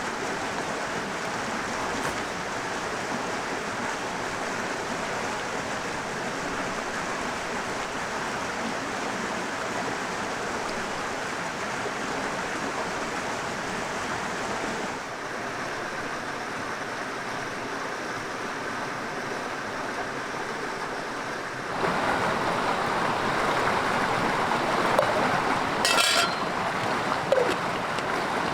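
River water running steadily. It gets louder about three-quarters of the way through, with a brief sharp sound near the end.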